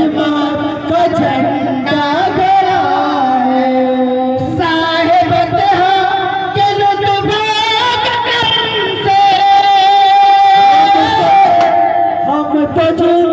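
Men singing a devotional chant into handheld microphones, amplified, with long held, wavering notes.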